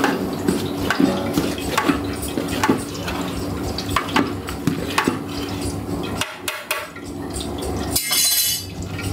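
Long metal ladle stirring curry in a large aluminium pot, knocking and scraping against the pot's sides a little under once a second. A brief hiss comes about eight seconds in.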